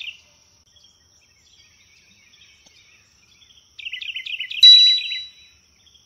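Bird chirping in quick runs of about five chirps a second, with a bright chime ringing out about four and a half seconds in, the loudest sound, fading over about half a second.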